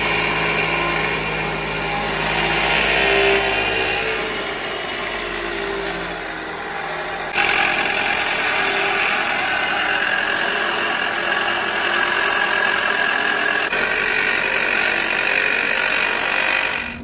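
Toyota Probox engine running at idle with an abnormal noise from its alternator, the noise for which the alternator is being replaced. The sound changes suddenly a few times.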